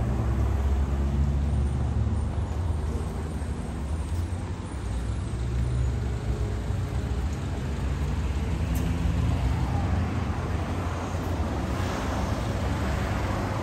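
Street traffic: a steady low engine rumble from vehicles on the road, with a swell of passing-vehicle noise near the end.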